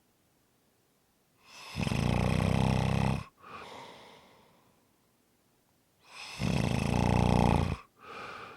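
A person snoring: two loud snores about five seconds apart, each followed by a shorter, softer breath.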